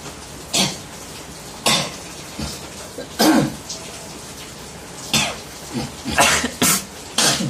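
Short, harsh cough-like bursts, about seven of them, spaced irregularly; a longer, lower one comes about three seconds in.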